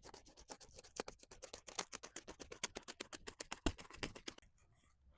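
A blade cutting through tarp to open a door in the shelter: a fast, scratchy run of crackles that stops about four and a half seconds in.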